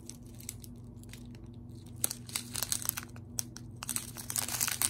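Clear plastic bags of square diamond-painting drills being handled and crinkled. The crackling is sparse at first and grows dense from about two seconds in, over a steady low hum.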